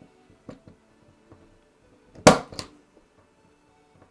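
Impact punch-down tool snapping once about two seconds in as it seats a wire into a keystone jack's slot and trims the end, with a couple of small ticks just after; faint light clicks of wires being handled before it.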